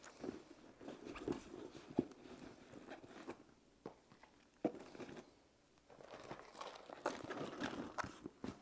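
Rustling, crinkling and soft knocks of small belongings being handled and packed into a canvas handbag fitted with an organiser insert, with a few sharp clicks along the way and brief pauses in between.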